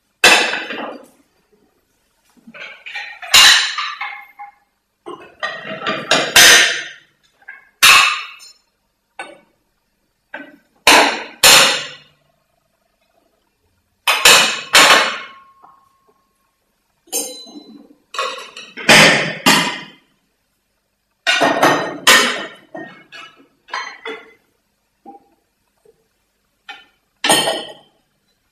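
Irregular knocks and clinks of hard objects, about a dozen in all, some in quick clusters, with silence between; a few ring on briefly after the strike.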